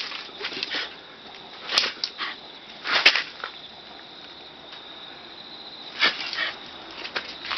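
Shiba Inu dog making short, breathy sounds while playing chase, in a few brief bursts about two, three and six seconds in.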